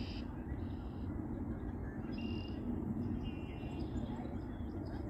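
A bird calling four times, each call a short, high, buzzy note of about half a second, over a steady low rumble.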